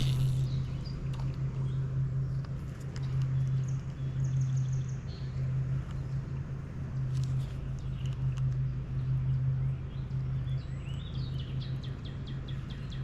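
Small birds chirping, with short rapid trills about four seconds in and again near the end, over a steady low hum.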